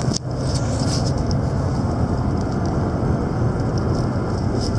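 Steady road and engine noise inside a moving car's cabin, strongest low down, with a brief dip just after the start.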